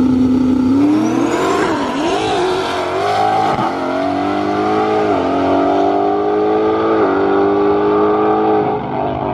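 Drag-racing Mustang's engine held at steady revs on the starting line, then launching and accelerating hard down the strip, the revs climbing and dropping back at each gear change, about three and a half, five and seven seconds in.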